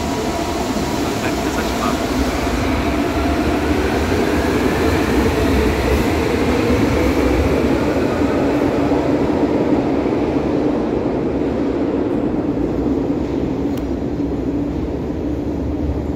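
Brasília Metro 1000-series electric train running past along the platform track: wheels on rail with steady motor tones, and a thin whine that rises in pitch a few seconds in. The noise swells toward the middle and eases off near the end.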